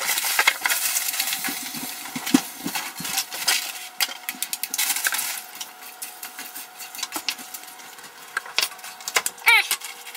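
Kitchen cooking noises: a hiss for about the first five seconds, with scattered clicks and knocks of handling. A short vocal sound comes near the end.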